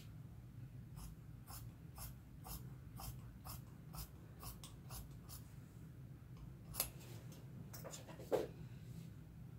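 Large metal tailor's shears cutting through fabric on a cutting table: short snipping clicks, about two a second, as the blades close stroke after stroke. A couple of sharper, louder knocks come near the end.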